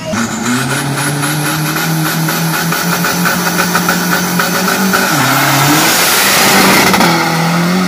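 Isuzu D-Max pickup's turbo-diesel drag engine revving hard and held at a steady pitch on the start line. About five seconds in the pitch drops briefly and then climbs again as the truck launches and pulls away.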